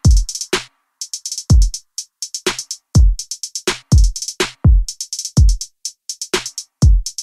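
Electronic background music: a drum-machine beat with deep kick drums that drop in pitch, about one a second, under quick high ticks.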